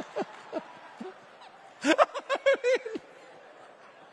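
A man laughing into a handheld microphone: a few short falling "ha" pulses at the start, then a louder burst of rapid laughter about two seconds in that stops about a second later.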